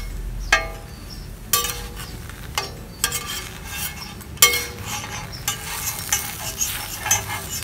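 Kebab wraps sizzling on a hot flat steel griddle while a metal spatula and tongs turn them, scraping and clinking sharply against the plate about five times, some strikes ringing briefly.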